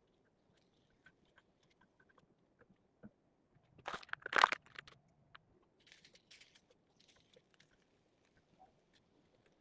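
A short loud crunching, crinkling sound about four seconds in, then softer rustling, with faint scattered ticks in between.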